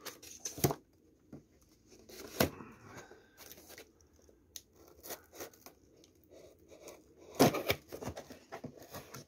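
Knife blade cutting security tape on a cardboard box: scattered scrapes and ticks of the blade on tape and cardboard, with a louder burst of scraping and tearing about seven and a half seconds in.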